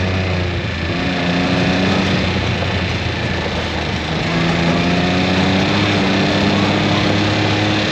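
Off-road vehicle's engine running while driving. Its pitch dips in the first second, then climbs slowly through the second half as it speeds up.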